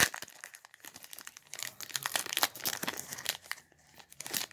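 Trading-card booster pack wrapper being torn open and crinkled in the hands: a dense run of crackling rustles that dies down near the end.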